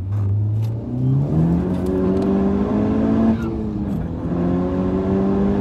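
Honda Civic Type R FK8's ECU-tuned, cat-deleted turbocharged four-cylinder under hard acceleration, heard from inside the cabin. The engine pitch climbs steadily, drops suddenly at an upshift a little over three seconds in, then climbs again in the next gear.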